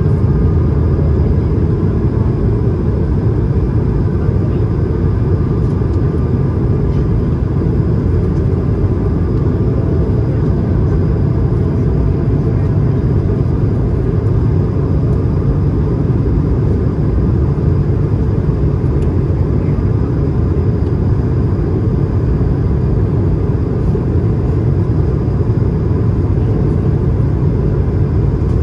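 Steady cabin noise inside an Airbus A220-300 on descent: a low, even roar of airflow and its Pratt & Whitney PW1500G geared turbofan engines, with faint steady tones over it.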